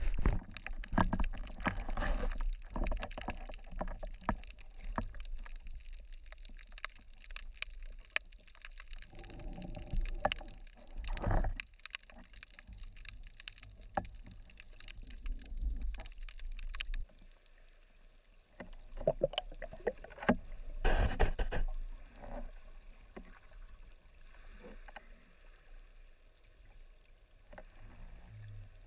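Underwater sound from a submerged camera: muffled water movement and gurgling, with irregular clicks and knocks.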